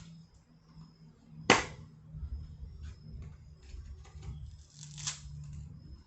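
A coconut being struck to break into its thick husk: one sharp, loud knock about a second and a half in, then a shorter scraping stroke around five seconds.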